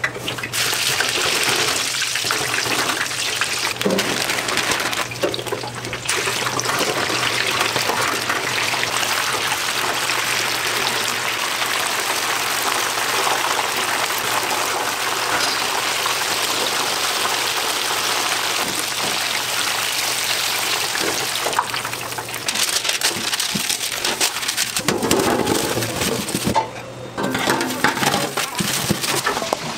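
Battered food deep-frying in a commercial fryer, the hot oil sizzling with a steady hiss. Near the end the sizzle falls away and the wire fry basket clatters as the fried pieces are tipped into a steel tray.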